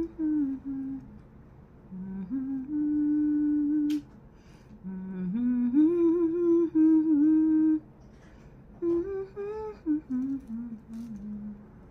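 A woman humming a tune in phrases of held, stepping notes with short pauses between them. A single sharp click sounds about four seconds in.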